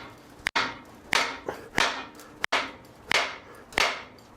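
Hammer blows driving a stuck piston down out of a cylinder of a 350 Chevy small-block, struck in a steady series of about six hits, roughly one every two-thirds of a second, each with a short metallic ring. A ridge worn into the top of the cylinder bore is holding the piston back.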